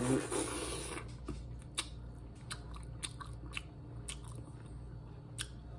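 Close-miked eating sounds of a seafood-boil boiled egg, coated in seasoning juice: a wet bite in about the first second, then quieter chewing with scattered small mouth clicks.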